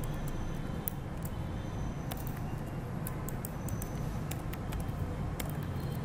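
Computer keyboard keystrokes: scattered, irregular short clicks as a line of code is typed, over a steady low hum.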